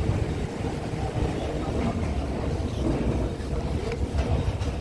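Uneven, gusty low rumble of wind buffeting the microphone.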